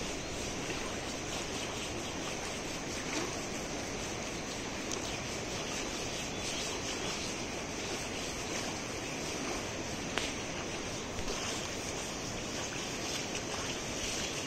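Steady rush of flowing river water, with a faint click about ten seconds in.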